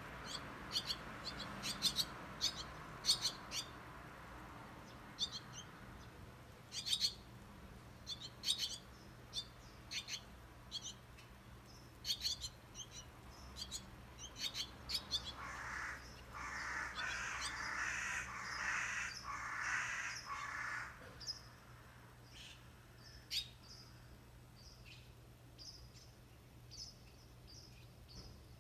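Crow cawing in a run of harsh calls lasting about five seconds past the middle, among scattered short, high bird chirps.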